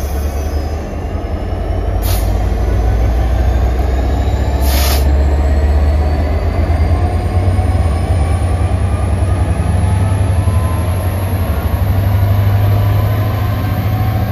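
Diesel locomotive running under power, a heavy low engine drone that swells and eases, with a faint whine slowly rising in pitch as it gathers speed.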